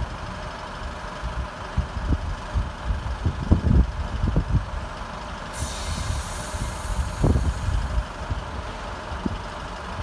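The underfloor Cummins diesel engines of a Class 156 Super Sprinter diesel multiple unit idle at a standstill, giving an uneven low rumble. About five and a half seconds in, a hiss of air starts suddenly and lasts a couple of seconds.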